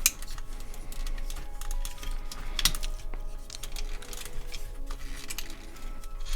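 Hard plastic parts of a Transformers Twincast action figure clicking and clacking a few times as they are swung and snapped into place during its transformation, over steady background music.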